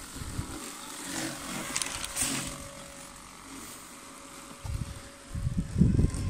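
Worx Landroid robotic lawnmower driving across grass and mowing normally, its electric motors giving a faint steady hum. A much louder low rumble comes in about five seconds in.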